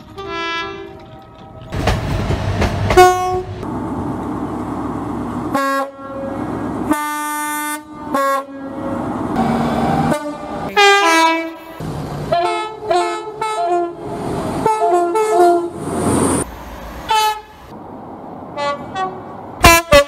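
Train horns from several trains in turn, over the noise of trains passing. They are mostly two-tone horns sounded in short alternating high and low blasts, with one longer blast. The quick run of alternating blasts about halfway through comes from a Class 66 diesel freight locomotive.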